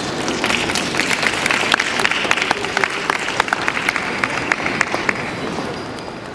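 A group of people applauding. The clapping starts about half a second in and dies away about five seconds in.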